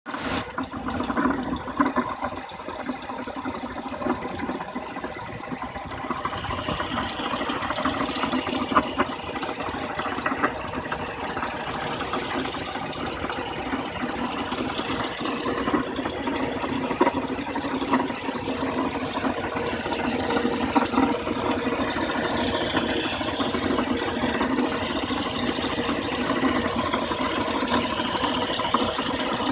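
BMW E36 316i's M43 inline-four petrol engine running steadily at idle, with a fast mechanical ticking over the engine note.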